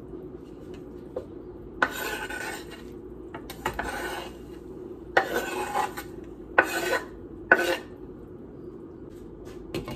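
Knife blade scraping chopped herbs and garlic off a wooden cutting board into a pot: five scrapes between about two and eight seconds in, over a steady low hum.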